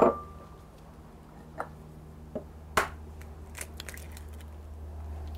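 A small glass bowl set down on the counter with a knock and a short ring, then a few sharp taps and crackles as an egg is cracked on a glass mixing bowl and the shell pulled apart, the loudest crack about three seconds in.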